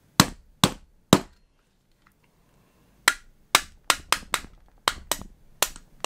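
Small plastic-faced hammer tapping a metal pin punch to drive the trigger pin out of a Tokyo Marui Glock 19 airsoft pistol frame. There are three sharp taps, a pause of about two seconds, then about eight quicker taps until the pin comes free.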